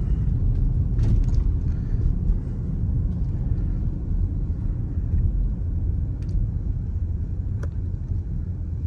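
Steady low rumble of a 2018 Dodge Durango driving, heard from inside the cabin, with a few faint clicks along the way.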